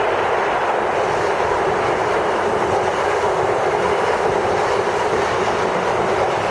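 CrossCountry High Speed Train (power cars 43239 and 43304) running through the station, its Mk3 coaches passing with a loud, steady rumble of wheels on rail.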